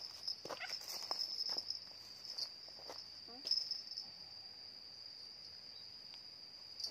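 Insects in the surrounding vegetation droning steadily on one high-pitched note, with a few faint clicks and knocks near the start.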